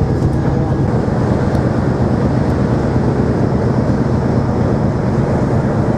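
Steady low drone of a car ferry under way, its engines and machinery giving a constant low hum under an even rumble.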